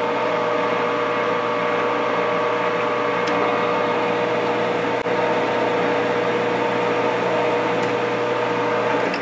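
Metal lathe running with the chuck spinning: a steady machine hum with several steady whining tones from the motor and headstock gearing, and a few faint clicks.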